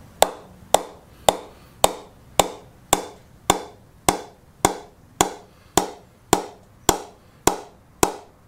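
Wooden bat mallet tapping the face of a Ton Simmo 54 cricket bat in a steady knock about twice a second, each knock ringing briefly. The depth of sound travels right through the whole blade, which the tester takes as the mark of a really good bat that is all middle.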